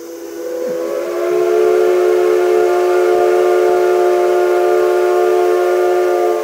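Steam locomotive C56 160's whistle blowing one long, loud departure blast, several steady tones sounding together. It swells up over the first second or so, holds level, and cuts off sharply at the end.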